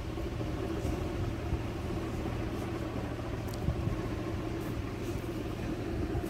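Steady low rumble of shop background noise, with a few faint clicks about halfway through.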